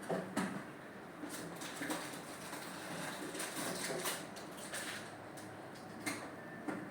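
Kitchen handling noise: a scattering of light knocks and clicks, as of dishes, utensils and containers being picked up and set down, several close together at first, then single ones every second or two.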